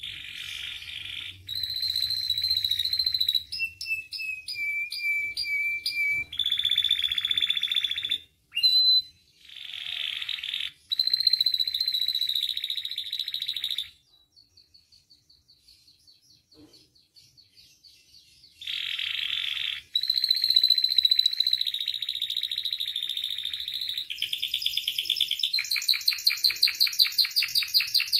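Domestic canary singing a long, varied song of rapid trills, rolls and clear whistled notes. A pause of about four seconds in the middle holds only faint quick ticks, and the song then resumes with fast rolling trills near the end.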